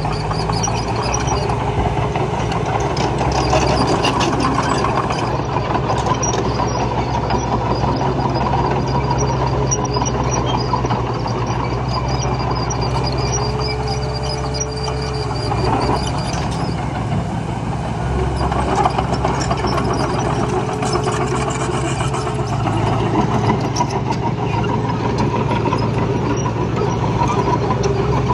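Heavy diesel earthmoving machinery running steadily, its engine note holding with small shifts, with occasional short knocks.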